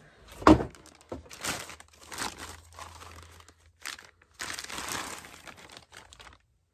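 Packaging being handled and pulled away from the model tank: irregular crinkling and tearing, with one sharp knock about half a second in.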